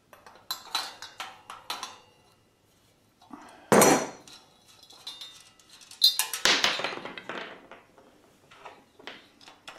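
Metal clinks, knocks and rattles as a steel yard whirligig is handled, its blades and hub parts knocking together. There are a few light clicks at first, louder knocks about four and six seconds in, and lighter clicks near the end.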